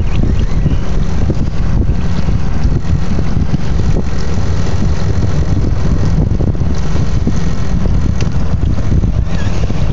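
Wind buffeting the microphone of a small skiff under way, a steady low rumble, with the skiff's outboard motor running underneath and water rushing past the hull.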